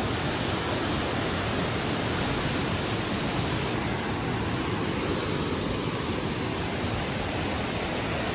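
Dingmans Falls, a tall waterfall sliding down stepped rock ledges into a pool, rushing with a steady, even noise close by.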